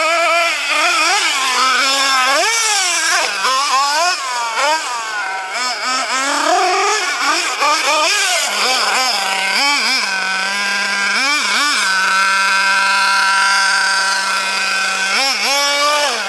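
Hobao Hyper ST truggy's nitro engine revving up and down again and again as the truggy is driven and jumped, then holding a steady pitch for a few seconds, with short blips near the end. The engine is running lean because of a fuel-pressure problem.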